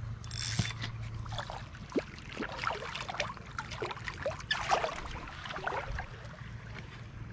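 River water splashing and sloshing in irregular bursts as a small hooked smallmouth bass is pulled to the surface and grabbed by hand.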